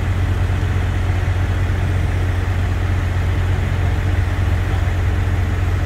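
Heavy construction equipment's diesel engine running steadily, a constant low hum with no change in pitch or load.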